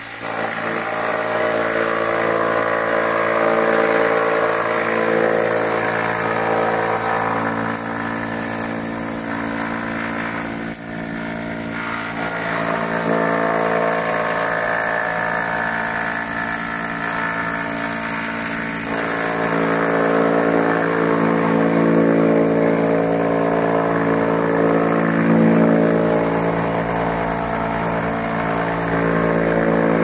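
Industrial drum wood chipper running steadily with a loud machine hum, chipping wood scraps as they are fed in on its conveyor. It dips briefly a little over ten seconds in and runs somewhat louder from about two-thirds of the way through.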